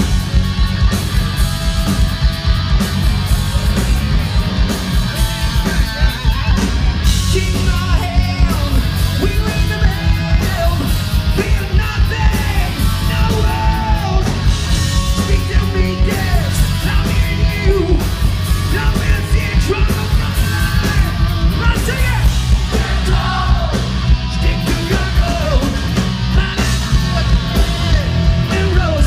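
Hard rock band playing live through a loud outdoor stage PA: electric guitar and drums with a singer belting the vocal, heard from within the crowd.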